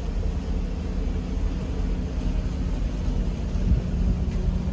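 Boat engine running steadily: a low rumble with a faint steady hum, from a yacht under way.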